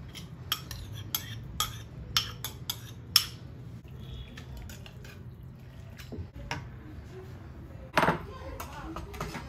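Metal spatula clinking and scraping against a wok while stir-frying cabbage: a quick run of clinks over the first three seconds, a few more later, and one louder clatter about eight seconds in.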